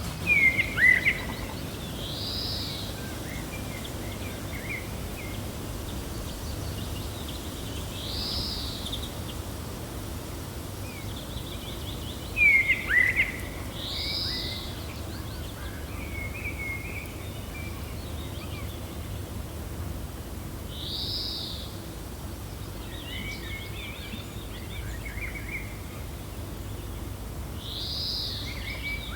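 Gentle wind with birds calling: a short arched call repeats about every six seconds, with two louder bursts of sweeping chirps, one right at the start and one about twelve seconds in, and scattered softer chirps between.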